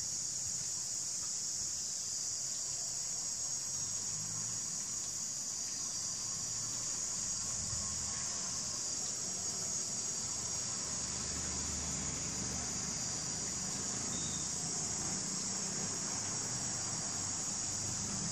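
A steady, high-pitched chorus of insects, crickets by the sound of it, shrilling without a break.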